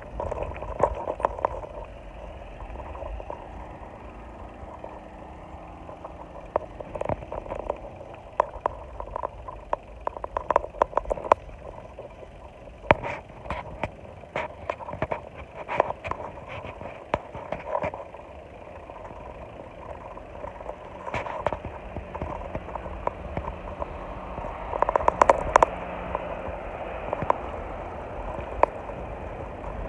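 Wind buffeting and road rumble while riding along a road, with frequent sharp rattles and clicks from the ride over the road surface.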